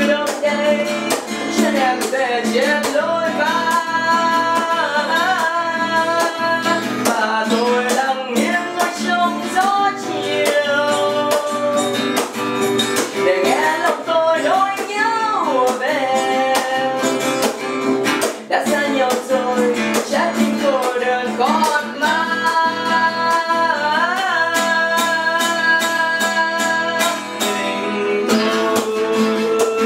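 Acoustic guitar playing a slow song. Long held melody notes run over the plucked accompaniment.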